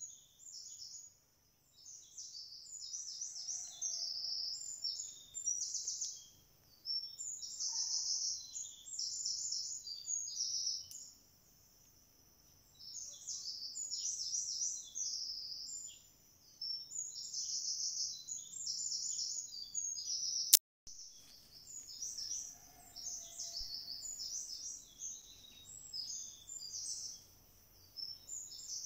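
A bird singing high, rapid chirping phrases, each a second or two long, repeated with short pauses. A single sharp click comes about two-thirds of the way through.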